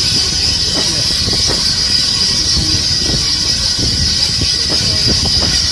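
Passenger coaches of a departing steam train rolling slowly past: a steady rumble of wheels on the rails with a steady high hiss over it.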